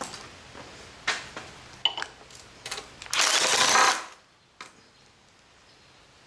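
Metal tools and engine parts clinking and knocking a few times, then a loud harsh rushing noise lasting about a second.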